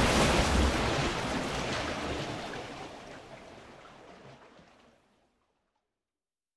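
Water splash sound effect: a rush of splashing water with a deep low rumble, fading away over about five seconds.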